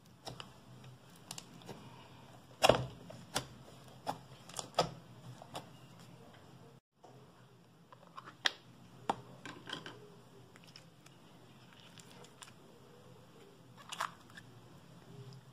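Sticky slime being squeezed and kneaded by hand, giving scattered sharp clicks and pops, the loudest a few seconds in, with small plastic slime tubs being handled. The sound drops out for a moment about halfway through.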